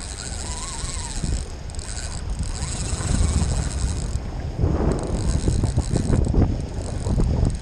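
Fishing reel's drag buzzing in stretches as a hooked fish pulls line against it, with short pauses between runs and some clicking in the second half. Wind rumbles on the microphone underneath.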